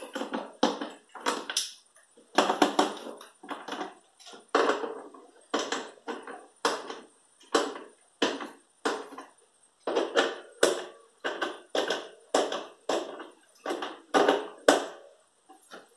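Small self-drilling screws driven by hand with a screwdriver through a plastic tub's floor into aluminium angle bar: a long series of short scraping, crunching strokes, about one to two a second, one per turn of the screwdriver.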